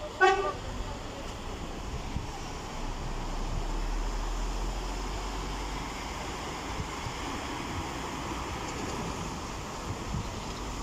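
Steady rushing outdoor noise of road traffic with wind on the microphone, and one short, loud pitched beep just after the start.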